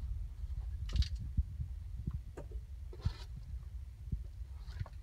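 Low rumble of a handheld camera being moved about, with a few scattered rustles and knocks from someone shifting over wooden attic joists and insulation.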